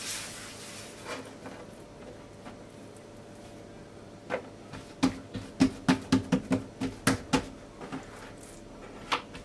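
Hands patting and pressing oiled dough flat against a wooden board. A run of soft taps, about four a second, comes a little past the middle, with faint handling sounds around it.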